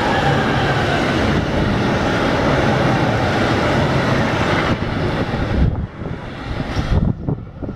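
Freight train of double-deck car-carrier wagons rolling past on steel rails, a loud, steady rumble and clatter of wheels on track. The noise drops sharply about five seconds in as the last wagons pass, leaving uneven gusts of wind on the microphone.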